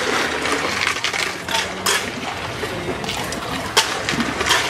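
Drinks being stirred with long plastic ladles in large plastic drink tubs: liquid sloshing, with a few sharp clacks of ladle against tub.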